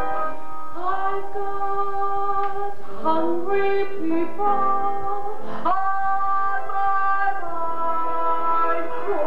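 A woman singing a song into a microphone in long held notes, with live keyboard accompaniment.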